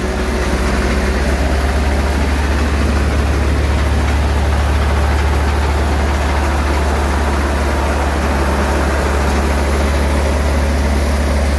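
Heavy diesel farm engine running steadily at a constant speed, a low, even drone.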